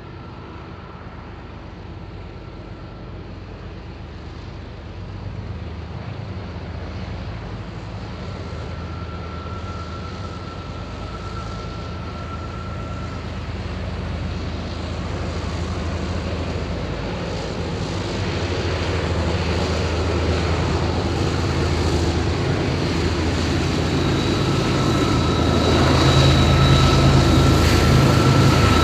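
Five GE diesel-electric locomotives (ES44AC and C40-8 units) working at full throttle at the head of a heavy freight train, a deep engine throb growing steadily louder as they approach. A thin high whine comes and goes over it and is strongest near the end.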